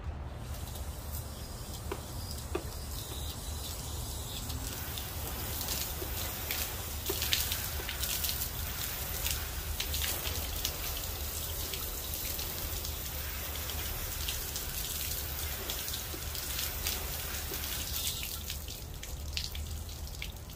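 Garden hose spray nozzle spraying water against a van's sheet-metal side and window, with an uneven hiss and spatter of water on the panel. It is a water test for leaks around a newly installed bunk window.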